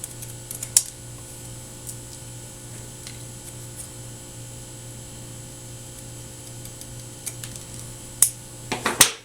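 Sharp scissors snipping through HDMI cable, a few crisp clicking cuts: one near the start and a quick cluster of snips near the end. A steady low hum runs underneath.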